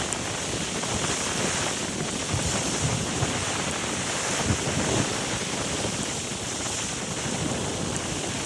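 Caribbean Sea waves washing and breaking in a steady surf, with wind buffeting the microphone in a low rumble.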